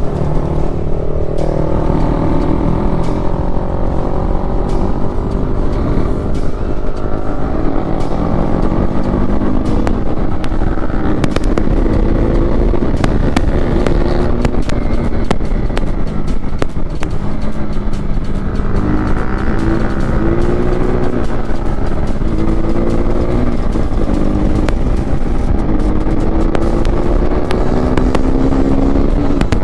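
KTM RC 390's single-cylinder engine running under way, its pitch climbing with the revs and stepping down at gear changes several times, over a steady low rumble of wind and road noise.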